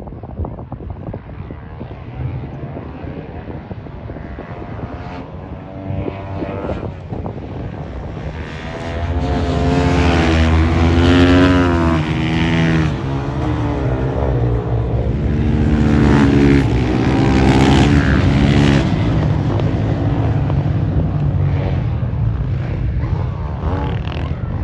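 Supermoto motorcycles racing past, their single-cylinder four-stroke engines revving up and down through the gears. The loudest passes come about ten and seventeen seconds in.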